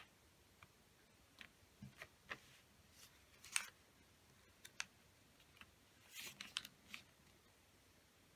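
A square sheet of origami paper being folded and creased by hand: faint, scattered crinkles and light taps, the loudest about three and a half seconds in, and a short run of rustling about six seconds in.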